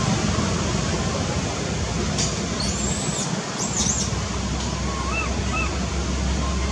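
Steady outdoor noise, like wind or distant traffic, with a few short high-pitched chirps in the middle and some fainter, lower squeaky calls a little later.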